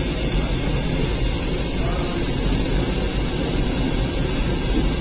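Steady, even rushing noise of a bakery's gas-fired rotating bread oven and its machinery running, with a deep rumble underneath and no distinct knocks or clatter.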